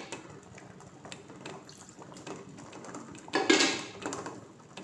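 Milk poured from a cup into melted chocolate in a steel bowl: a short splashing pour about three seconds in, with faint taps of metal on steel before it.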